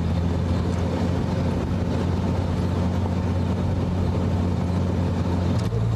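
A motor vehicle's engine running steadily: a low, even drone with a steady hiss over it, its note shifting slightly near the end.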